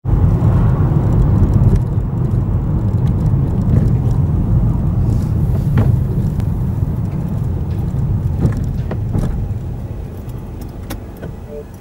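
Car engine and tyre noise heard from inside the cabin while driving, a steady low rumble that tapers off over the last couple of seconds as the car slows to a stop.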